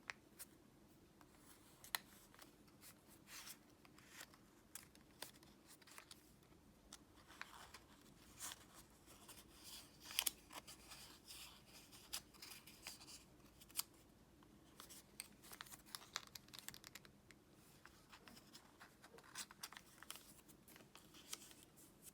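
Faint crinkles, scrapes and light taps of origami paper being folded and creased by hand, busiest about ten seconds in.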